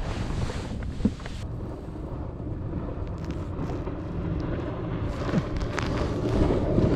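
Wind buffeting the microphone over choppy lake water, with a few light clicks of a spinning reel and rod being handled. A motorboat engine grows louder near the end.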